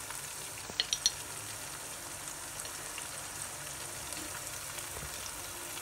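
Onions, bay leaves and whole spices frying in oil in a large pot, a steady low sizzle, as ground coriander is spooned in. A few light spoon clicks about a second in.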